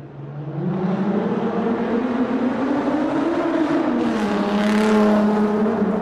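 A car driving through a road tunnel, approaching and passing. Its engine note climbs, then drops about four seconds in, and the car is loudest about five seconds in.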